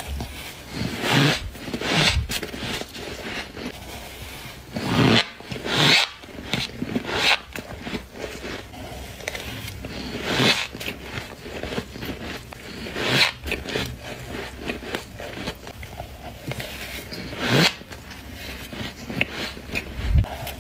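Someone biting into powdery humidifier frost close to the microphone: a series of crunchy bites at uneven intervals, about eight of them loud, with smaller crunches in between.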